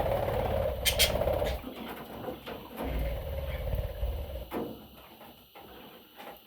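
Budgerigar chicks calling with a rasping, grainy sound, over low rumbling handling noise with a few sharp clicks about a second in; the sound fades over the last couple of seconds.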